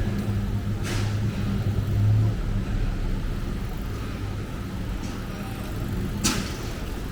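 Street ambience with a motor vehicle's engine running close by as a low hum, strong for about two seconds, then easing. Two sharp clicks sound, about a second in and near the end.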